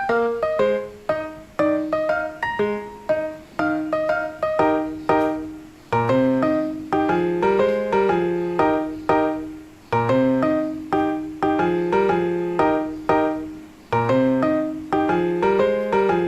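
Background music: a solo piano playing a gentle melody over a repeating pattern of chords, each note struck and left to fade.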